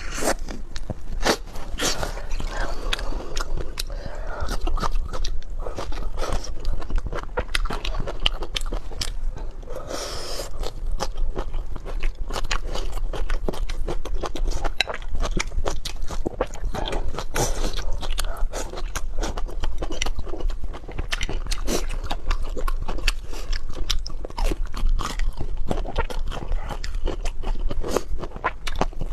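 Close-up eating sounds: a person biting, chewing and crunching food, with dense, irregular crunches that keep on throughout.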